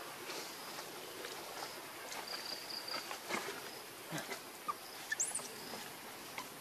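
Outdoor insect ambience: a steady faint hiss with a short high trill about two seconds in, scattered soft clicks and rustles, and one brief high chirp about five seconds in.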